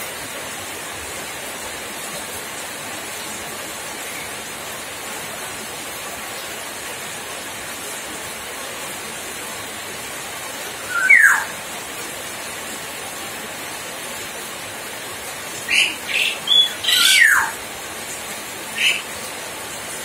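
Common hill myna giving a few short whistled calls: one falling whistle about halfway, then a quick run of calls near the end. A steady hiss runs underneath.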